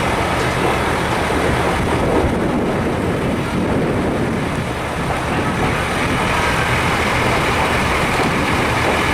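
Fire truck's diesel engine running steadily, a low drone with a loud constant rushing noise over it.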